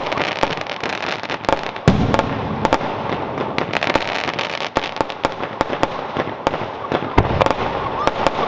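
Fireworks display: a dense, continuous crackle of many small sharp bangs, with a deep boom about two seconds in and another about seven seconds in.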